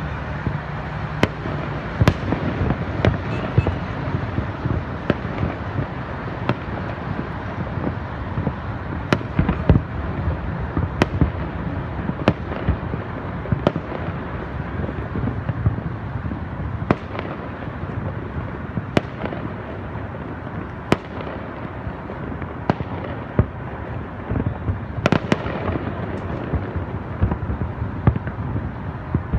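Fireworks display, with shells bursting in sharp bangs every second or two, irregularly spaced, over a steady rumbling haze of noise.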